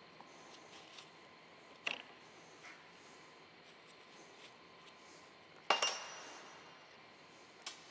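Metal jet ski crankshaft parts being handled, with a few sharp metallic clinks. The loudest comes about three-quarters of the way in and rings briefly.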